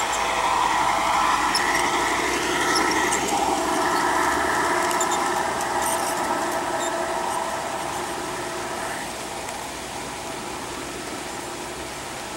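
G-scale model log train rolling past on its track, the wheels and motor making a steady whirr with a high squeal. It gets quieter after about eight or nine seconds as the train moves away.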